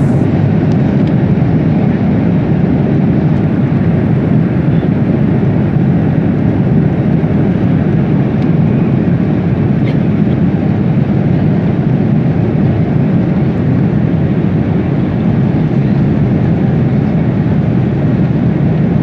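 Airliner's jet engines running at takeoff power: a loud, steady, low noise with no breaks.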